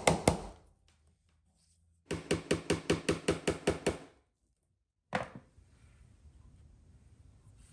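Small hammer tapping quickly and lightly, about six blows a second, driving small nails into a thin panel, in two runs with a pause between. A single knock follows about five seconds in.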